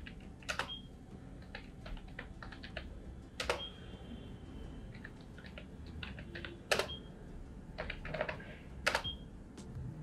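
Typing on a ProDot computer keyboard: irregular, fairly quiet key clicks with a few harder strokes, some followed by a brief high tone.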